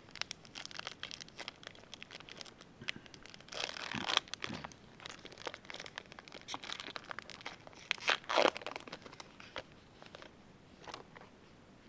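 The foil wrapper of a Topps baseball card fat pack being torn open and crinkled, with lots of small crackles. There are two louder rips about four and eight seconds in.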